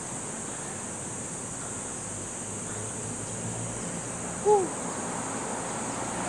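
Street ambience picked up by a handheld phone: a steady wash of wind and traffic noise with a constant high-pitched buzz. About four and a half seconds in, a single short voiced sound rises and falls in pitch.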